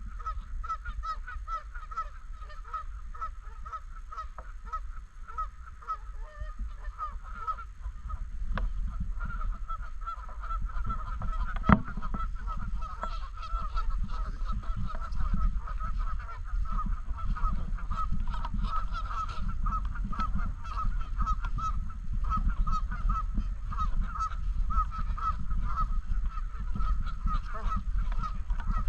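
A flock of Canada geese honking continuously, many calls overlapping, louder from about eight seconds in, over a low rumble. A single sharp click about twelve seconds in.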